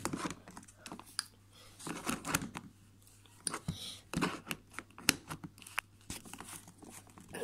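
Irregular scuffing, rustling and clicking handling noise as a phone is moved close over carpet, in short clusters with brief pauses.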